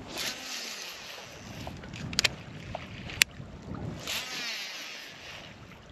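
Wind gusting across the microphone in two swells, with a few sharp clicks in between.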